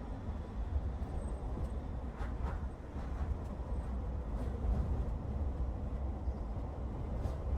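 A car driving, giving a steady low rumble of road and wind noise, with a few faint ticks.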